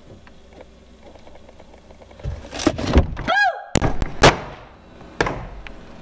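Lid of a plastic wheeled recycling bin thrown open and banging, a run of loud thumps and knocks starting about two seconds in, with a short shout that rises and falls in pitch in the middle of them.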